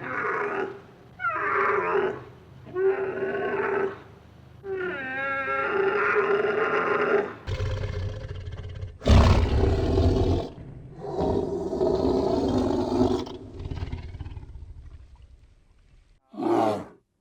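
A series of animal calls: several drawn-out, wavering calls, then louder, rougher calls with a low rumble, fading, and two short calls near the end.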